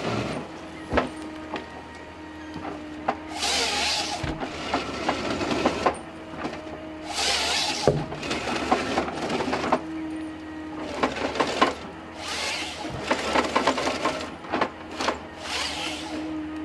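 Forestry harvester working with a Log Max harvesting head: the machine's engine runs steadily while the head gives repeated loud rasping bursts of a second or two, from its saw cutting and its feed rollers driving the stem, with sharp knocks and clicks between them.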